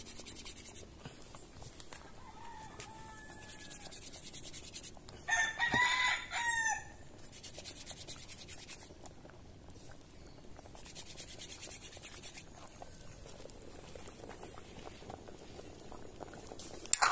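A rooster crowing once, loud and drawn out for about a second and a half, starting about five seconds in, with a fainter call a few seconds before it.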